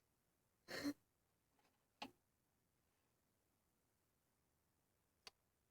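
Near silence: room tone, broken by one brief soft noise about a second in and two faint clicks, the first about two seconds in and the second near the end.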